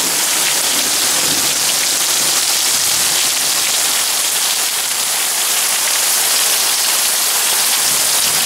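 Heavy thunderstorm downpour: rain falling steadily in a dense, even hiss.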